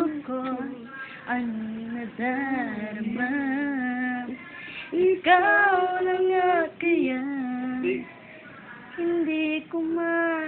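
A female voice singing a melody, holding long wavering notes in phrases with short breaks for breath.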